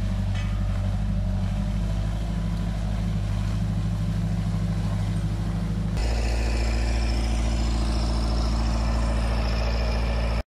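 JCB wheel loader's diesel engine running steadily under work while its weed brush attachment sweeps the ground. About six seconds in, the sound jumps to a deeper, closer engine note, and it cuts off suddenly near the end.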